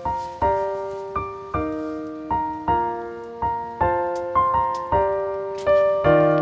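Background music: a gentle piano-like melody of single notes, each struck and fading, about two or three a second.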